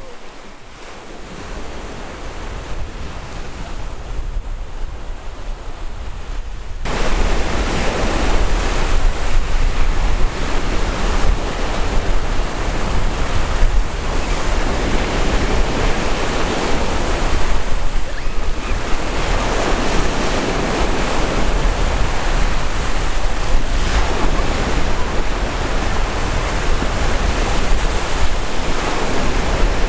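Ocean surf breaking and washing through the shallows, with wind buffeting the microphone. About seven seconds in it gets suddenly louder, and the wash then swells and eases every several seconds.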